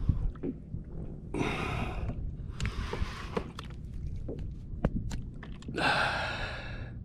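An angler breathing hard while reeling against a hooked tuna: three long, noisy breaths, about a second and a half in, near the middle and near the end. Under them a low wind rumble on the camera microphone and scattered small knocks of rod and reel handling.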